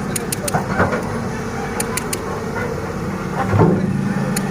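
Excavator's engine running steadily with a low hum, with a few sharp metallic clicks and a short louder swell of working noise about three and a half seconds in.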